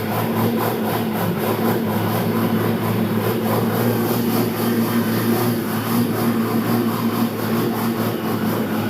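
An engine running steadily at an even pitch, with a constant low hum.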